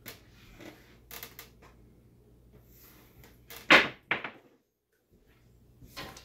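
Pair of dice clicking lightly as they are set by hand, then thrown: two loud knocks about three and a half and four seconds in as they hit the wooden craps table and its back wall, and a fainter knock near the end.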